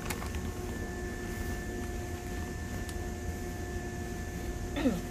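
Keisei 3500 series electric train standing still at a station, its equipment giving a steady low hum with a few steady tones. Just before the end comes a brief, loud squeal that falls in pitch.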